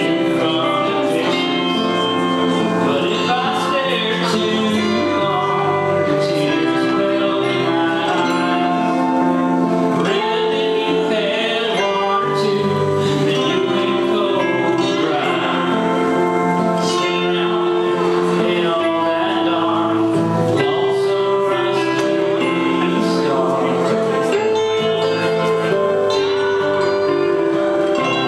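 Live music: guitar playing with singing, steady through.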